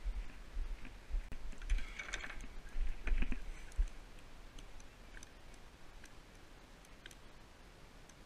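Freshly caught herring landing and flopping on a wooden pier deck, with several loud knocks and scuffs in the first half. Then light clicks and taps as a sabiki hook is worked out of a herring's mouth by hand.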